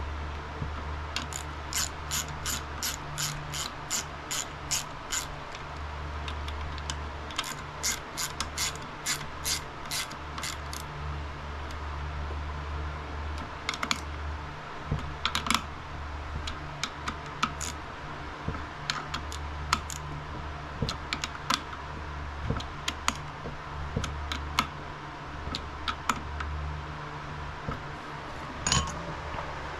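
Hand ratchet clicking as the clutch spring bolts are run down: a steady series of about two clicks a second for the first ten seconds, then more scattered clicks.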